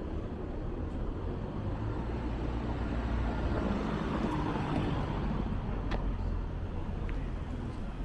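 A car driving slowly past on a narrow street. The engine and tyre noise is a low rumble that swells to its loudest about halfway through.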